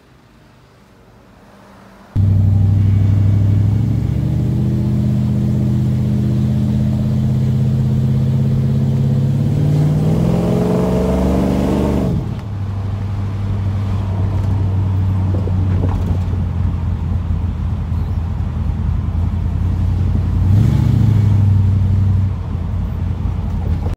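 Twin-carburettor V8 of a 1960s Ford Galaxie, heard from inside the cabin while driving. It comes in suddenly about two seconds in, runs steadily, and its pitch climbs as it accelerates about ten seconds in. It then drones steadily at cruising speed, with a short rev near the end.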